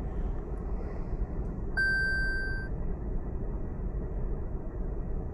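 A single electronic beep about two seconds in, lasting just under a second, over a steady low background hum. The beep comes as the electronic parking brake control is switched back to auto mode.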